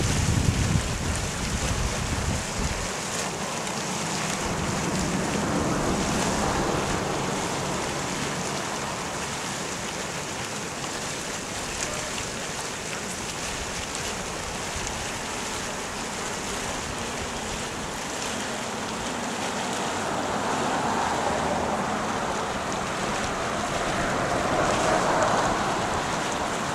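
Acidic sulfur hot spring churning and steaming: a steady rushing hiss that swells twice. Wind buffets the microphone for the first few seconds.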